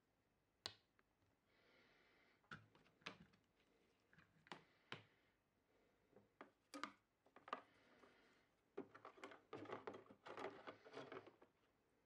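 Faint handling sounds: scattered light clicks and knocks, then about two seconds of denser rubbing and clicking near the end, as a toothbrush and fingers go into a plastic tub of soapy water holding the can opener's metal parts.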